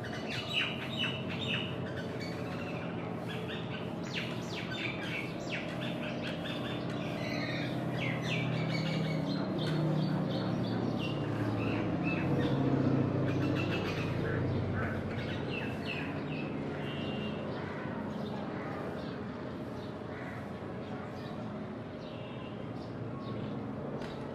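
Birds chirping and squawking close by, over the low rumble of a distant military aircraft's engines as it lands and rolls out, swelling to its loudest about halfway through and then fading.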